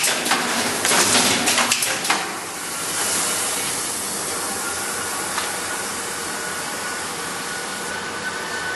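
Automatic spine pocket welding machine running: clattering clicks and knocks from its mechanism for about two seconds, then a steady hiss with a faint high whine underneath.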